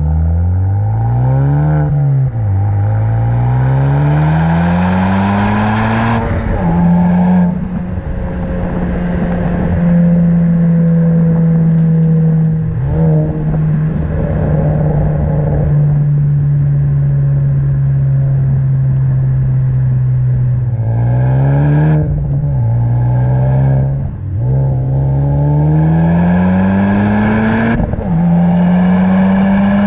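Honda Civic Type R FK8's 2.0-litre turbocharged four-cylinder pulling hard through the gears, its pitch climbing in each gear and dropping briefly at every upshift. In the middle it holds a steady, slowly falling note for about thirteen seconds, then pulls through the gears again with three more upshifts.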